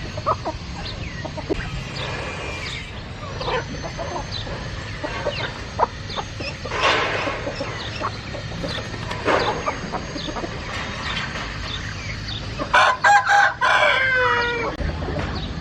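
Chickens clucking with scattered short calls, then a rooster crowing loudly for about two seconds near the end, the crow falling in pitch as it finishes.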